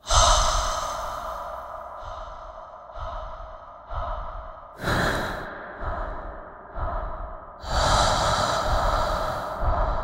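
Loud human breathing that starts abruptly, a breath about every second, with two longer, louder breaths about halfway through and again a few seconds later.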